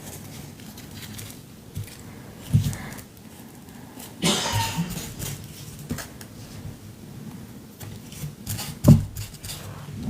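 Collage work with paper and glue: pieces of paper rustling and crinkling as they are handled and pressed down, with small clicks and a longer rustle about four seconds in. Two dull knocks on the work surface, the louder one near the end.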